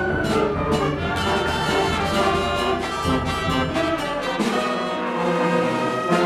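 Concert band playing, with brass to the fore and regular percussion strokes under sustained chords.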